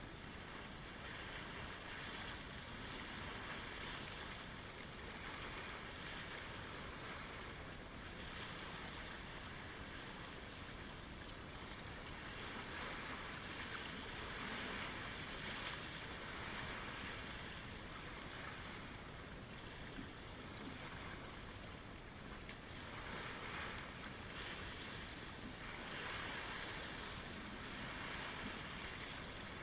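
Small lake waves lapping and washing in, a steady hiss of water that swells and fades every few seconds.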